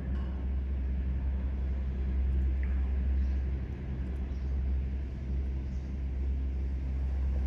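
Steady low rumble and hum of running machinery.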